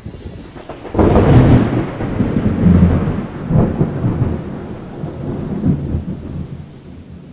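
Thunder: a loud clap about a second in, followed by low rolling rumbles that swell and slowly fade.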